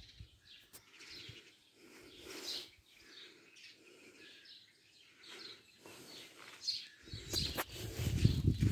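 Small birds chirping, short calls scattered throughout. About seven seconds in, a low rumble comes up and grows loudest near the end.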